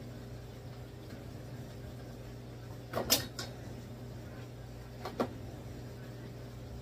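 A kitchen knife knocking on a cutting board: a quick cluster of sharp knocks about three seconds in, then a single knock about two seconds later, over a steady low hum.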